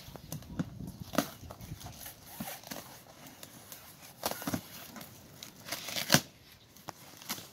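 Cardboard shipping box being opened by hand: the flaps rustle and crinkle, with a few sharper knocks and scrapes as the box is handled.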